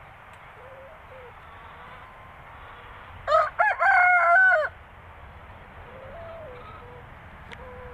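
Rooster crowing once, a short, loud cock-a-doodle-doo about three seconds in, lasting under a second and a half. Faint clucking from the flock comes before and after it.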